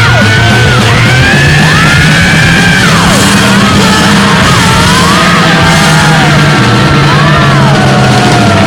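Loud rock music with a strained, yelled vocal over steady bass and guitars.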